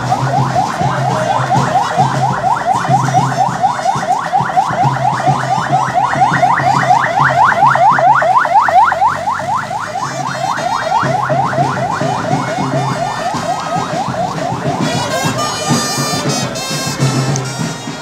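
Emergency-vehicle siren in fast yelp mode: quick rising wails repeated several times a second, fading out about ten seconds in.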